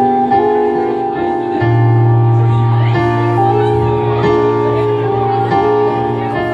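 Live band music: held keyboard chords that change every second or so, with a low bass-guitar note coming in about a second and a half in.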